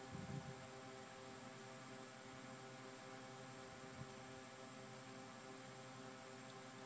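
Near silence: a faint, steady electrical hum with a high thin whine over hiss, and a soft low bump about a third of a second in.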